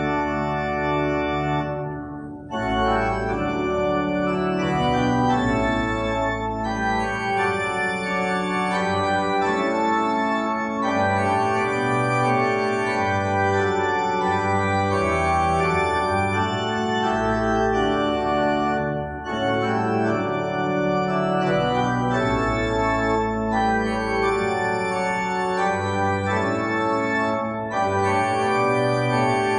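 Organ playing a slow piece in sustained chords, with short breaks between phrases about two seconds in and again about nineteen seconds in.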